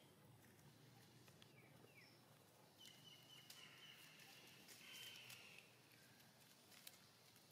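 Quiet outdoor ambience with faint high-pitched animal calls, the longest drawn out between about three and five and a half seconds in, and a few faint clicks.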